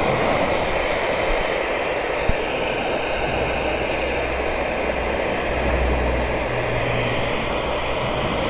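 Handheld electric hair dryer running steadily: a constant rush of blown air over its motor hum, heating a motorcycle tank sticker to soften the adhesive so it can be peeled off.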